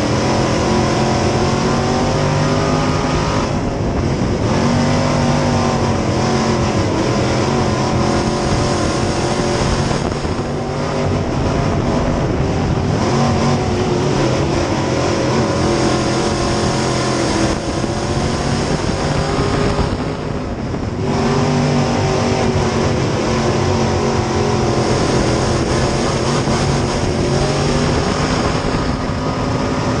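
Onboard sound of a dirt-track sport modified's V8 running hard at racing speed. The pitch climbs along the straights and drops briefly four times as the driver lifts for the turns, with other race cars' engines around it.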